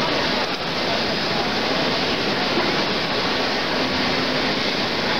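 Steady hubbub of many people talking in a large hall, the voices blending into an even wash of noise.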